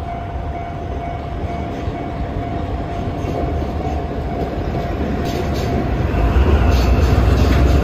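Diesel freight locomotive hauling tank wagons approaches and passes, its low engine rumble growing louder until about six seconds in. A level-crossing warning signal sounds a steady tone that fades under the train noise, and faint wheel clicks come in near the end.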